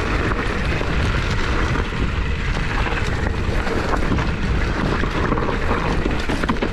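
Mountain bike rolling down a dry dirt singletrack: steady wind rush on the camera microphone over tyre noise on dirt, with small clicks and rattles from the bike and dry grass and mustard stalks brushing against it.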